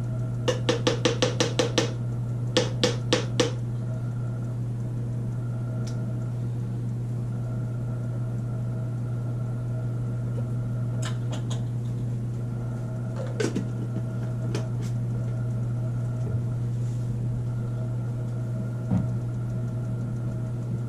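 A spoon knocking against a jar of coconut oil in a quick run of light taps, about five a second for a second and a half, then four more, with a few single clicks later, over a steady low hum.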